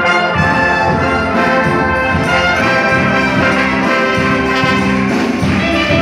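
Orchestral music led by brass, with trumpets and trombones playing full, sustained chords.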